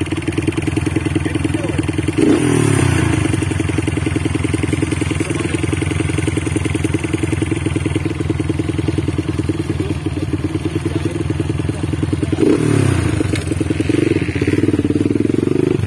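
Dirt bike engine idling close by with a rapid, steady beat, blipped up in revs and back down twice, about ten seconds apart.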